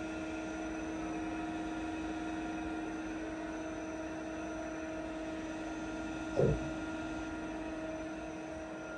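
Steady hum with a few held tones from the powered-up Yang CK-3B CNC lathe standing idle, with a single brief thump about six and a half seconds in.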